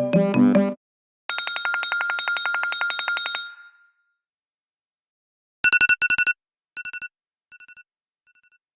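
Apple iPhone ringtones and alert tones played in sequence. A musical ringtone ends in the first second, then a bright tone trills rapidly for about two seconds before ringing out. After a pause, a double beep repeats four or five times, each quieter than the last, like an echo fading away.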